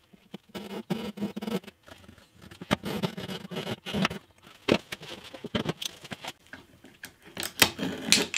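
Backsaw cutting through the end of a hardwood guitar neck: a run of rasping saw strokes in the first half, as the cut is finished, then a few sharp separate knocks.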